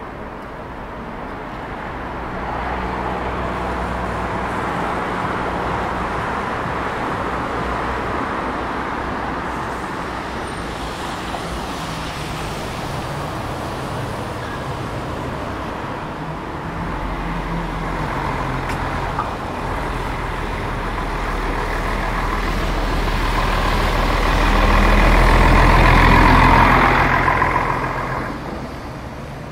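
City street traffic with a heavy motor vehicle passing close by: its low engine rumble builds, is loudest a few seconds before the end, then fades away.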